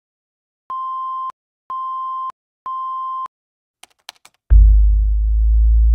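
Three identical electronic beeps, about one a second, each a steady tone of about half a second; then a few quick keystroke clicks typing out text; then a loud, deep bass drone starts about four and a half seconds in.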